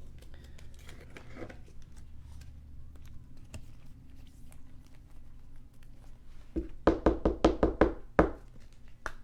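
Light clicks of card handling, then a quick run of about eight loud knocks, roughly five a second, near the end.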